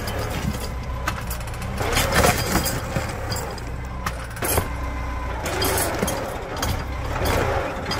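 Diesel tractor engine running steadily under a low rumble, with scattered knocks through it.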